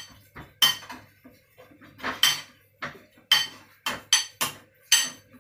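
A spoon knocking against a ceramic bowl while stirring a minced pork mixture: irregular sharp clinks, about one or two a second, each with a brief ring.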